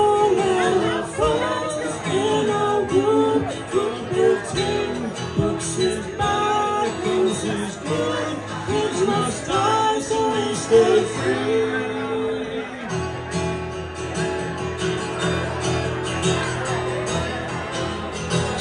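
Live singing with acoustic guitar accompaniment. A woman's voice leads, and the voice drops out about thirteen seconds in while the guitar carries on.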